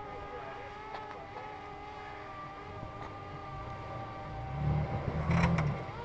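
An SUV's engine running as it crawls over a rock step, with a steady whine throughout. It gets louder for about a second and a half near the end.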